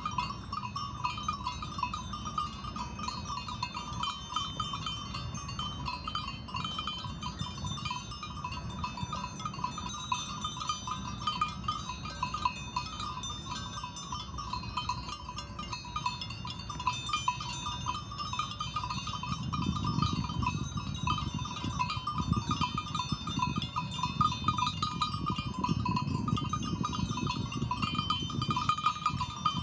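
Ambient sound of a grazing flock of sheep: a constant light tinkling like small bells, with a low rustling that grows louder from about twenty seconds in.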